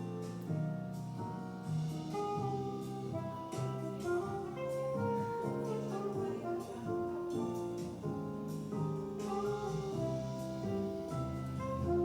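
Background music: an instrumental piece of held melodic notes over chords.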